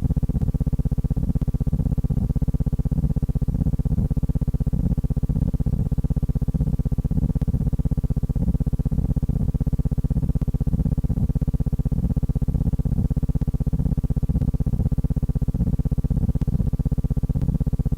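A steady low electrical buzz with a fast, even pulse.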